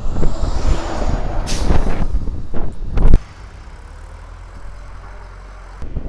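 Wind buffeting the microphone in loud, uneven low gusts. It cuts off suddenly about three seconds in, leaving a quiet steady low hum.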